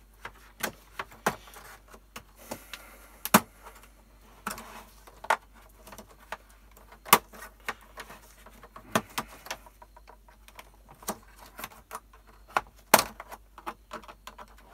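Plastic snap-fit clips of a Dell P2415Q monitor's bezel clicking loose as a thin plastic pry tool works around the edge: a run of irregular sharp clicks and pops, loudest about three seconds in and near the end.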